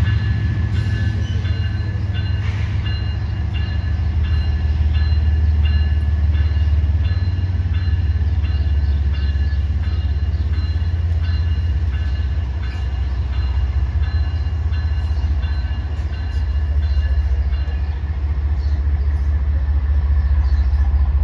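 A stationary rail vehicle's engine idling: a steady low rumble, with a few steady high-pitched tones and faint ticking over it.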